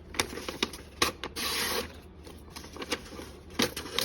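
Small pocketknife blade of a Victorinox Classic SD cutting through a material, with sharp clicks and a short hissing slice about a second and a half in.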